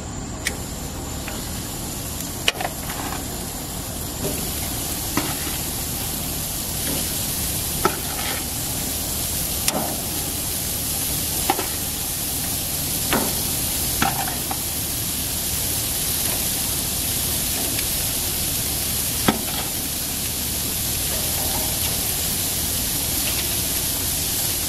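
Beef steaks and pork loin sizzling on a hot gas grill's grates, the sizzle growing slightly as more pieces are laid down. About ten sharp clicks of metal tongs against the grate are scattered through it.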